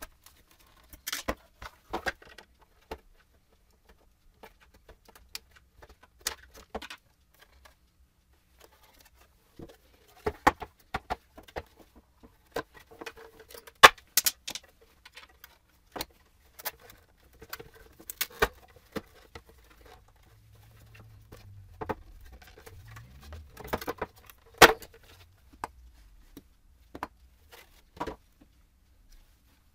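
Irregular clicks, taps and clatter of a halogen headlight's plastic housing, chrome reflector and adjuster screws being handled and taken apart by hand, with the sharpest knocks about halfway through and again later on.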